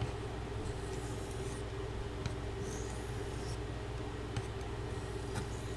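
Steady low hum with faint, brief scraping strokes of a carbon-steel knife blade on a sharpening stone, about a second in and again about three seconds in, and a few light clicks.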